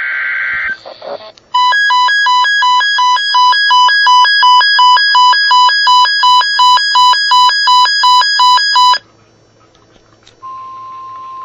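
Electronic weather-alert tone warbling between two pitches about three times a second for roughly seven seconds, then cutting off suddenly. After a short pause a steady single-pitch tone near 1 kHz starts, the NOAA Weather Radio warning alarm tone. A brief burst of noise comes right at the start.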